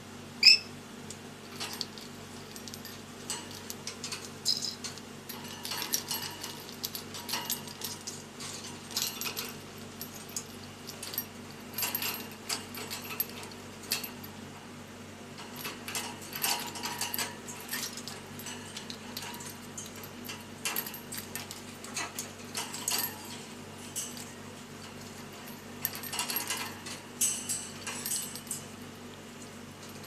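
Rainbow lorikeet clambering about its wire cage, its claws and beak clicking and rattling on the metal bars in scattered bursts. About half a second in, the bird gives one short, sharp rising whistle.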